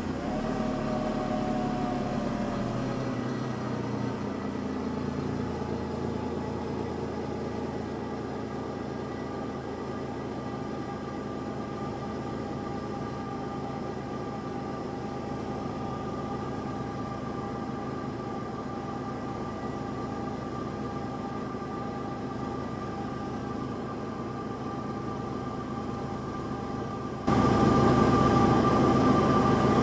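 Suzuki Cappuccino's turbocharged three-cylinder engine dropping back from a blip of the throttle and settling into a steady idle. Near the end the sound suddenly becomes louder.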